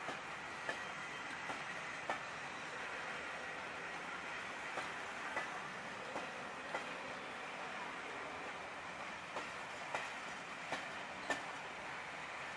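Passenger coaches rolling past over pointwork, a steady rail noise with sharp wheel clicks every second or so, often in pairs, as the wheels cross rail joints and points.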